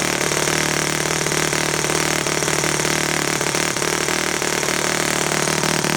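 Saito FA-50 single-cylinder four-stroke glow model airplane engine running steadily on a test run.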